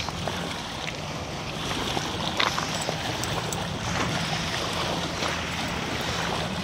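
Wind on the microphone and river water lapping at a rocky shore, with scattered clicks of stones shifting underfoot and a faint steady low hum.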